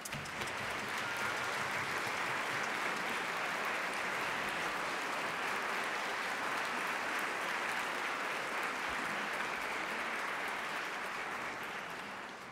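A large concert-hall audience applauding. The clapping starts up at once, holds steady, and dies away near the end.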